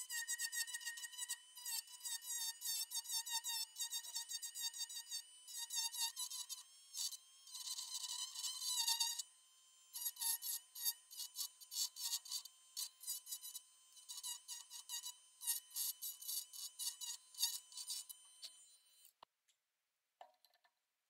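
Small handheld rotary tool running at high speed with a bit against the wooden handle's tenon, shaping it to fit the hammer head; its whine dips in pitch each time the bit bites, in many short passes. It stops about nineteen seconds in, followed by a couple of faint clicks.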